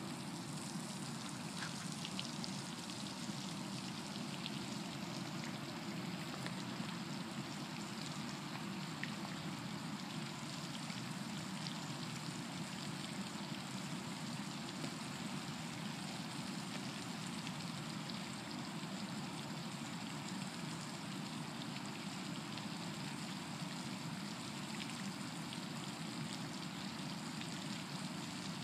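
Steady rush of water from an outdoor fountain pool, with a few faint ticks above it.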